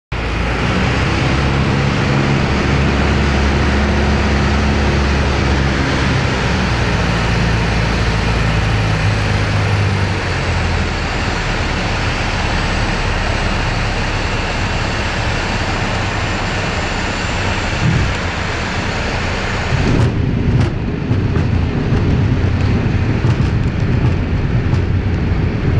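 Cabin noise of a Piper PA-28 light aircraft on final approach: the piston engine and propeller run steadily at first, then ease off after about ten seconds as power comes back. About twenty seconds in the sound changes abruptly to an uneven rumble with knocks as the wheels touch down and roll on the grass runway.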